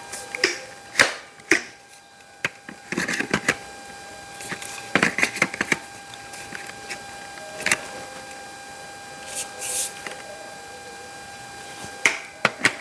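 Hard plastic parts of a Dyson V7 cordless vacuum being handled and pushed together: irregular clicks and knocks, with a brief rustle near the end.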